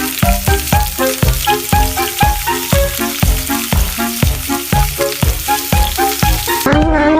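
Food sizzling loudly in a frying pan, over background music with a steady beat; the sizzling cuts off near the end.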